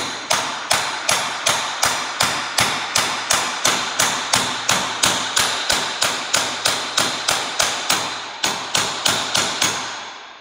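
Ball-peen hammer striking a 1-3/8-inch socket used as a bearing driver, tapping a new bearing into a New Idea 5209 discbine cutter-bar gearbox by its outer race. Steady, even metallic blows about two and a half a second, each with a slight ring, stopping about a second before the end.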